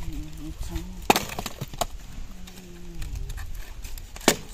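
Wood being chopped with a blade: three sharp strikes, about a second in, shortly after, and near the end. A low held pitched sound comes twice between them.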